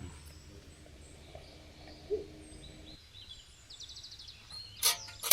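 Quiet rural outdoor ambience with faint twittering of small birds, and a sharp knock or click just before the end.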